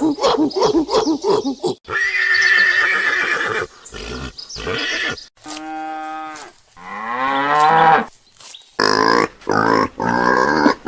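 Horses neighing: a rapid, shaking whinny for about the first two seconds, then several separate neighs, one held steady and one falling in pitch.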